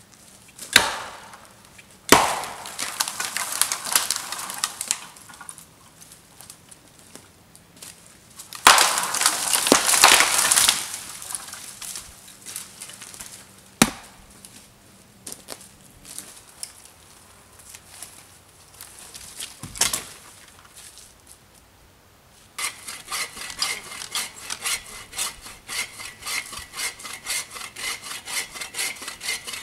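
Dead wood snapping and cracking, with one loud crashing rustle of branches, as dead branches are broken and pulled out of forest deadfall. About three-quarters of the way through, a bow saw starts cutting a log in even back-and-forth strokes, about two to three a second.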